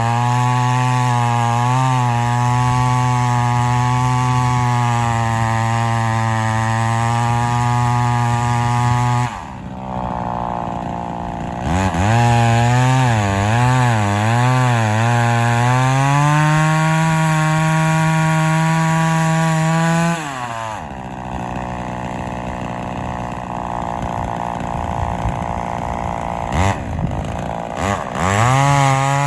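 Homelite XL-400 two-stroke chainsaw cutting under load. The engine note drops back twice to a lower idle, wavers up and down as it is revved back up, and climbs again near the end. The saw was not running perfectly.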